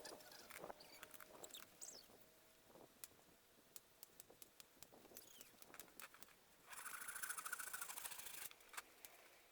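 Near silence outdoors: faint scattered clicks and a few short high chirps, then a brief rasping buzz lasting under two seconds, starting about seven seconds in.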